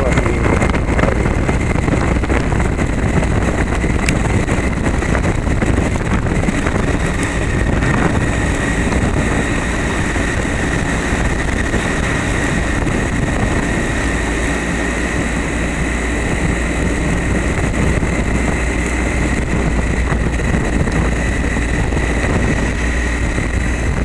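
Motorcycle riding on a wet cobblestone road: steady engine and tyre rumble mixed with wind noise on the bike-mounted camera, with a thin steady high whine throughout.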